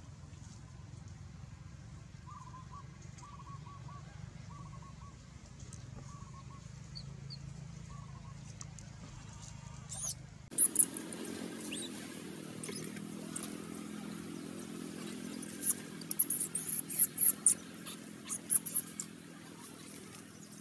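Newborn macaque crying: faint short squeaks in the first half, then after a change of background a run of loud, sharp, high-pitched squeals in the second half.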